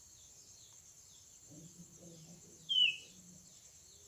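A bird gives one short, falling chirp about two and a half seconds in, over a faint, steady high chirring of insects.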